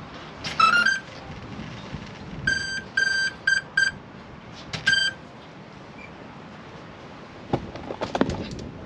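Electronic beeps from RC helicopter gear: a short rising chirp about half a second in, then five short beeps at one high pitch between about two and a half and five seconds in. A few sharp clicks and knocks near the end.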